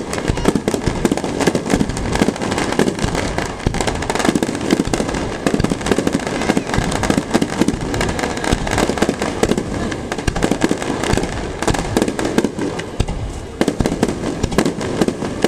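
Aerial fireworks bursting in a rapid barrage, bang after bang and crackle after crackle packed closely together with no pause.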